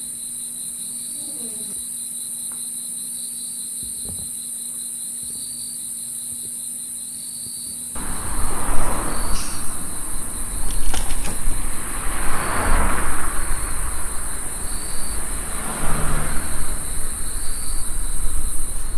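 Crickets chirping: a steady high trill with a regular chirp about once a second, in a night-time ambience track. About 8 s in, a louder rushing noise joins, swelling and fading every few seconds.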